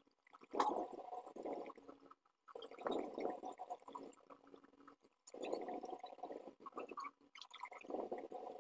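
Scratchy rubbing and a few light clicks as a vacuum cleaner motor is handled and opened up, coming in three stretches with short pauses between.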